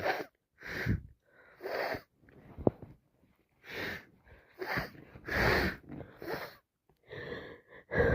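A congested person sniffing and breathing hard through a blocked nose: about ten short, wet sniffs and breaths, irregularly spaced and each under half a second.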